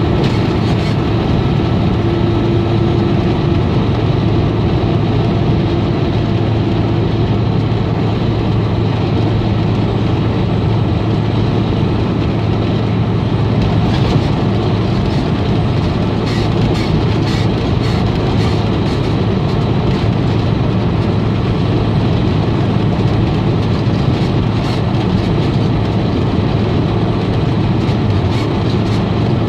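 Steady road and engine noise heard from inside a vehicle cruising at highway speed: a low rumble of tyres and drivetrain with a continuous hiss of air. A run of faint light ticks comes about halfway through.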